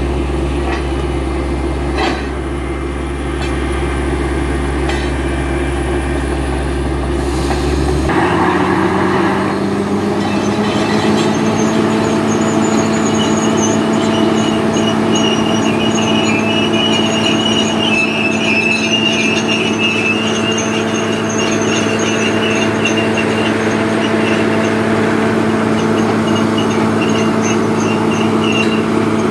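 Borehole drilling rig running hard under load, with a steady mechanical drone. About eight seconds in, the deep hum drops away and the engine note rises a little and holds, and a thin high whine runs over it while air drilling blows dust and cuttings out of the hole.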